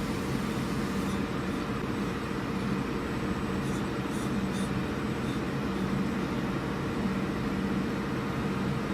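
CNC router machinery running: a steady mechanical hum with a few faint high ticks in the first half.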